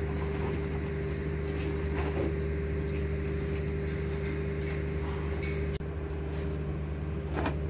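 Steady low mechanical hum of a diesel engine or mill machinery running, with a few short rustles and knocks over it.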